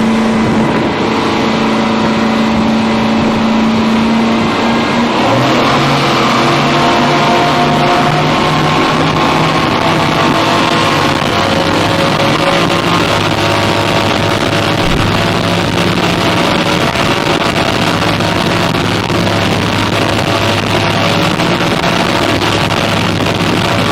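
Twin Yamaha 425 hp V8 outboard motors running loud and steady. The engine note changes about five seconds in and then climbs slowly, over a haze of water and wind noise.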